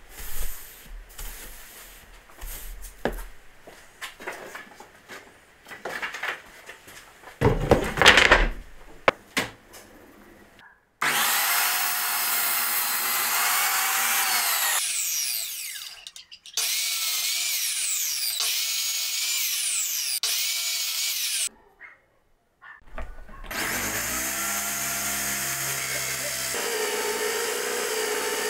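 A hand brush sweeps sawdust across a workbench with scattered rubs and knocks, loudest about eight seconds in. From about eleven seconds a sliding mitre saw's motor runs in two long stretches, its whine falling away at the end of each. Near the end a corded electric drill starts up, climbs in speed and runs steadily, drilling into a clamped block of wood.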